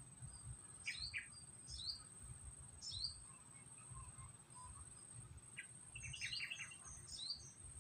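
Birds chirping, faint: short, sharp downward-slurred notes about a second in, again near two and three seconds, then a quick run of chirps near the end, over a low rumble.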